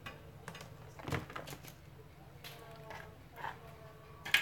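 Scattered light knocks and clicks of kitchen items being handled on a tiled counter, with a sharper click near the end.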